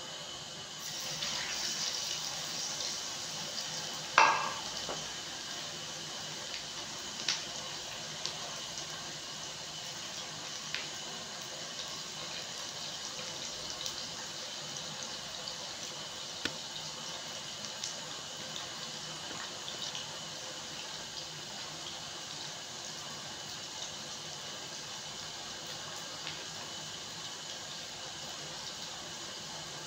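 Whole fish frying in hot ghee in a wok: a steady sizzle that swells as the fish goes in about a second in, with a sharp knock about four seconds in and scattered spitting pops after.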